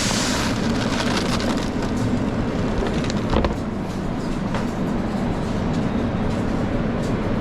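Steady low machine rumble of a commercial kitchen, with a few light clicks and knocks of utensils. A short hiss at the very start fades within half a second.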